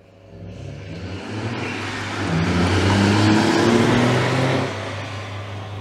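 Honda S660's mid-mounted 658cc turbocharged three-cylinder engine accelerating hard, its pitch climbing in steps. It is loudest about three to four seconds in, then eases off.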